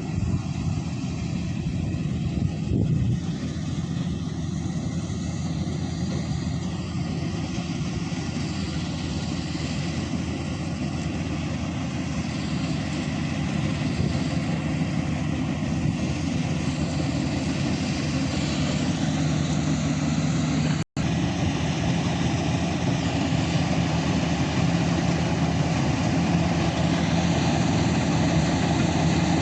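Maxxi Bhimo 102 combine harvester's engine running steadily, with a brief sudden break about 21 seconds in.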